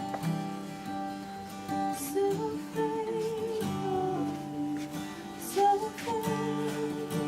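Slow worship music: an acoustic guitar strumming held chords, with a voice singing a wavering melody over it twice.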